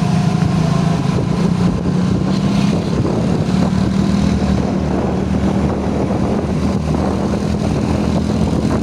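A vehicle engine running steadily, a constant low drone over a rushing noise that stays even throughout.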